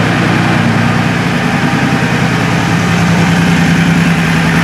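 2001 Honda Shadow Spirit 1100's V-twin engine, fed by two Keihin carburetors, idling steadily.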